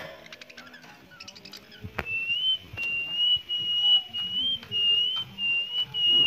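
A long, high whistle held at nearly one pitch, wavering slightly and breaking briefly a few times, beginning about two seconds in after a sharp knock. Before it, quick faint clicks.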